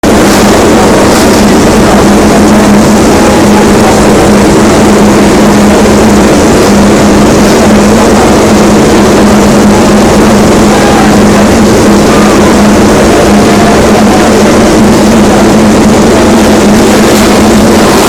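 MotoGP racing motorcycle engine running at steady, held revs, very loud, with one even pitch throughout and no revving up or down.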